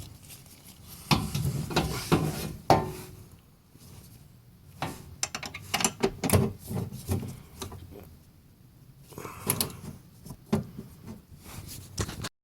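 Metal ratcheting spanners being handled, with irregular sharp clicks and clatter in three spells separated by quieter pauses.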